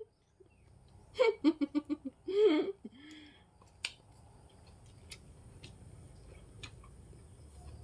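A short run of quick laughter about a second in, then a brief vocal sound. After that, a few scattered sharp clicks and smacks of eating by hand.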